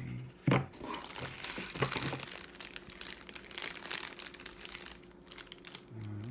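Vacuum packaging crinkling and rustling as parts are unwrapped from the box, with a sharp knock about half a second in.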